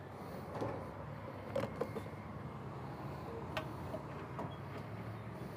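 A few light clicks and knocks scattered over a low, steady hum.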